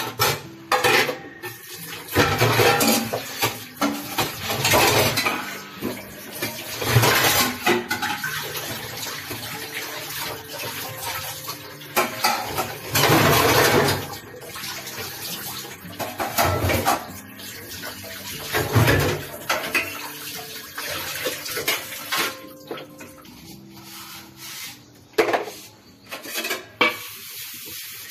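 Dishes being washed by hand at a kitchen sink: water splashing and running, with irregular clinks and clatters of utensils and plates knocking together.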